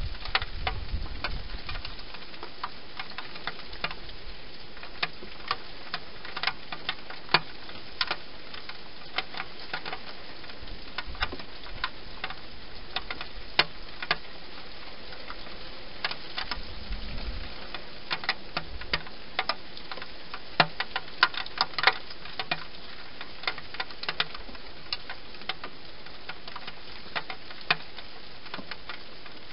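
Wild hedgehog eating inside a clear plastic feeding box: irregular sharp clicks and crunches of chewing, coming thicker for a couple of seconds past the middle, over a steady hiss.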